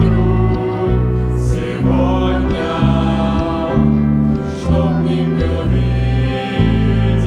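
A choir singing a Christian song over instrumental accompaniment, with held chords that change about once a second.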